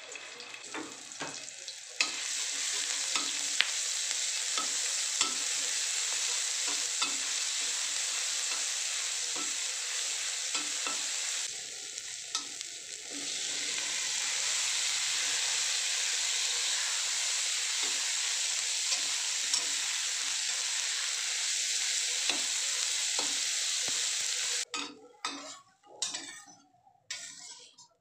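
Oil and chopped garlic sizzling faintly in a stainless steel wok, then cut green beans frying with a loud, steady sizzle from about two seconds in, while a metal spatula clinks and scrapes against the wok as they are stirred. The sizzle dips briefly around halfway and cuts off suddenly near the end, leaving only the spatula scraping and clattering.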